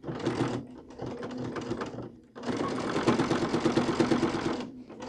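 Sewing machine stitching through quilt binding in two short runs with a brief stop about two seconds in: a few stitches forward and in reverse to lock the seam at its start.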